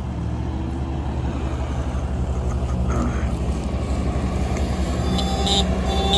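Bobcat skid-steer loader's engine running steadily, growing slowly louder as it drives up carrying straw bales. Near the end its horn honks twice, signalling the truck to move up.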